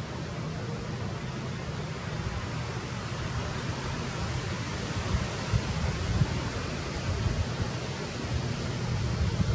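Wind on the microphone: a steady hiss with gusty low rumbling that swells and fades unevenly.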